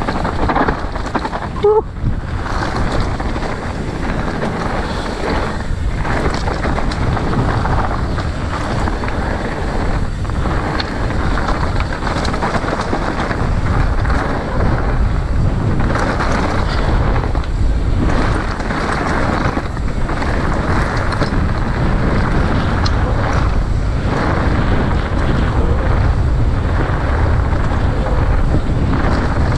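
Strong wind blasting across the microphone, a dense low rumble with brief lulls every few seconds.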